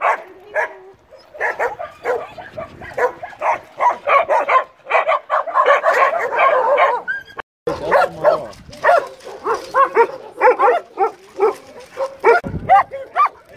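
Many dogs barking and yipping at once in a rapid, overlapping run of barks. The sound breaks off for an instant about halfway through, then carries on.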